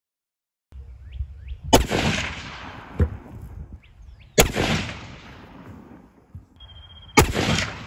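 .308 Winchester hunting rifle firing three shots about two and a half seconds apart, each a sharp crack followed by about a second of rolling echo.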